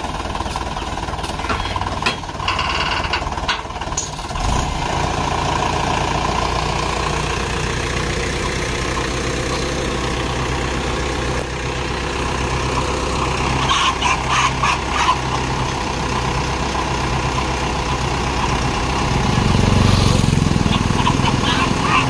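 Farm tractor's diesel engine running steadily while it works the hydraulic tipper that lifts a loaded trolley to dump its gravel. A few clicks come about fourteen seconds in, and a louder low rumble swells around twenty seconds in.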